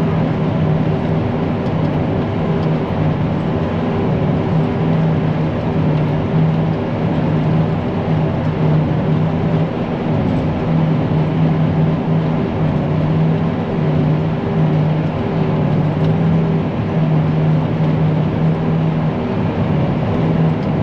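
Self-propelled forage harvester running steadily while chopping, a continuous engine and machinery drone with a steady low hum, heard from the operator's seat.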